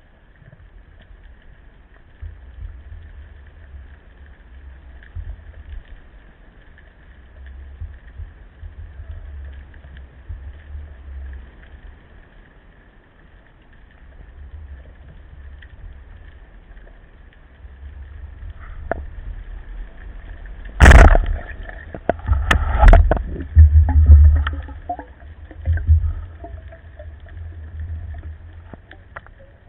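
Underwater ambience of low water rumble on the camera, broken about two-thirds of the way through by one sudden loud snap of a speargun being fired. A few sharper clicks and several low thumps follow within the next few seconds.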